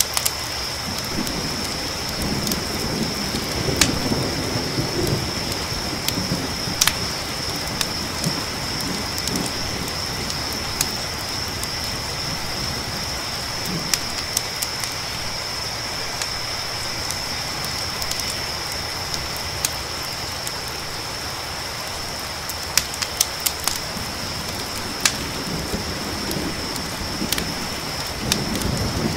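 Layered night ambience: crickets trilling steadily under a hiss of rain, with sharp crackles and pops from a campfire scattered through. Low rumbles of distant thunder come in near the start and again near the end, as the storm approaches.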